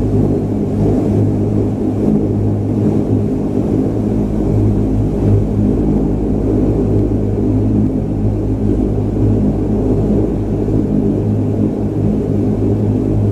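Cabin drone of a De Havilland Dash 8-300 turboprop's Pratt & Whitney PW123 engines and propellers: a steady low hum with evenly spaced tones above it and a rumble underneath, holding a constant level.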